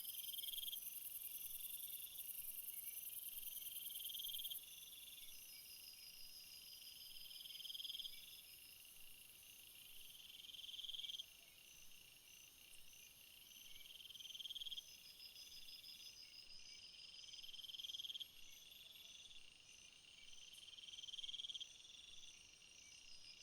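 Faint night-time jungle insect chorus: a dense, high shrill trill that drops out about two-thirds of the way through, steady pulsing chirps, and a repeated call that swells and then cuts off abruptly about every three and a half seconds.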